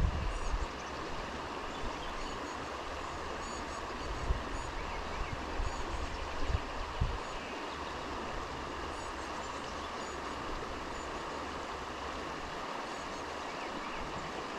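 River water running steadily over a riffle, with a few low knocks and bumps near the start and again between about four and seven seconds in, and faint high chirps now and then.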